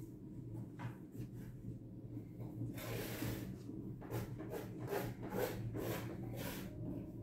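Steady low hum. From about three seconds in, a rhythmic run of short scuffing noises comes about twice a second, in step with walking.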